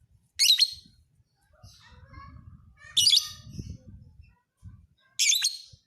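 Lovebird singing: three loud, shrill, short calls about two and a half seconds apart, with softer chirps between them.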